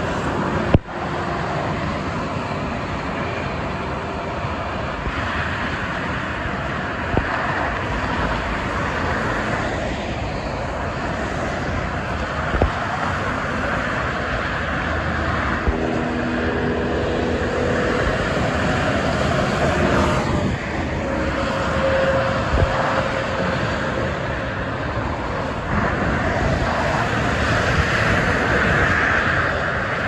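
Steady noise of dense expressway traffic, with the tyres and engines of cars and trucks passing continuously. One vehicle's pitch falls as it goes by about twenty seconds in, and there is a sharp click about a second in.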